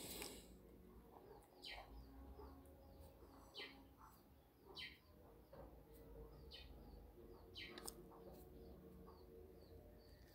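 Near silence, with faint bird chirps in the background: short falling chirps repeated every second or two.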